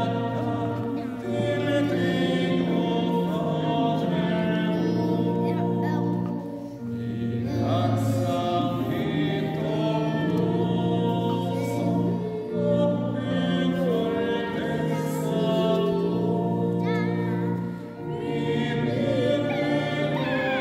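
A hymn sung by many voices in a church over steady held chords, the notes changing every second or two. There are short breaks between phrases about seven seconds in and near the end.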